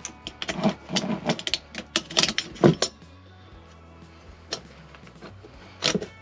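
Metal clinks and clatter from a new blower motor and its three-armed mounting band being handled and fitted together, a quick run of knocks in the first three seconds, a single click midway and one more knock near the end. Soft background music underneath.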